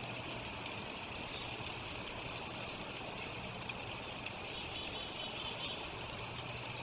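Steady rushing of a shallow river running over gravel. A faint low hum fades out about a second in and comes back near the end.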